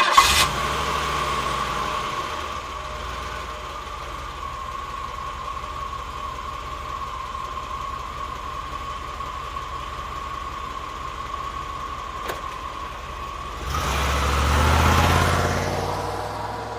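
Car engine starting right at the beginning, then idling steadily after its level settles over the first couple of seconds. It gives one rev near the end that rises and falls back toward idle, with a single click shortly before it.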